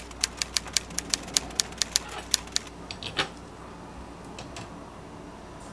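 A quick, even run of sharp light clicks, about five a second for two and a half seconds, then a few scattered ones, from hands at work with kitchen things on a countertop.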